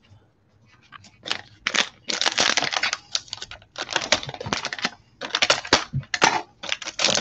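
A foil trading-card pack from a Panini Illusions football box being handled and torn open by gloved hands: irregular crinkling and tearing rustles in quick clusters, starting about a second in.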